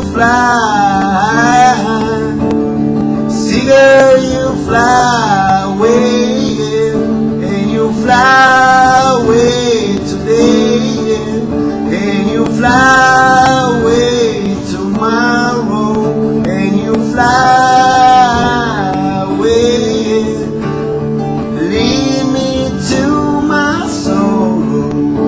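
Music: an acoustic guitar accompaniment under a male voice singing long, wavering melodic phrases.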